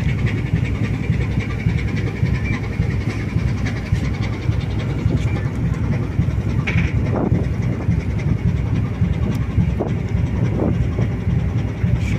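Steady low rumble of a cargo ship under way, its engine and machinery heard from the deck, with a faint steady high whine above it.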